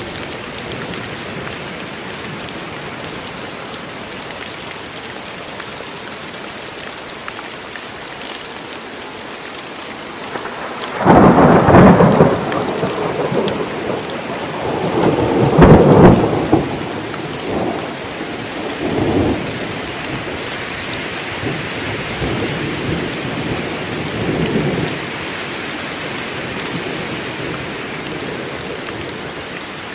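Steady heavy rain in a forest, with a loud crack of thunder about a third of the way in that rolls and rumbles in several waves for over ten seconds before fading back under the rain.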